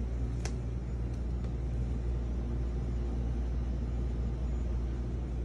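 A steady low rumble, with a faint haze above it and one small click about half a second in.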